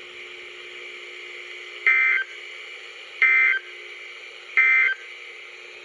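NOAA Weather Radio EAS end-of-message (SAME) data bursts played through a Midland weather radio's speaker: three short, buzzy digital chirps about 1.3 seconds apart. They signal the end of the flood warning broadcast. A faint steady hum lies under them.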